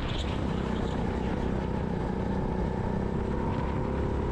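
Hire kart's engine running steadily at racing speed, heard onboard from the driver's seat.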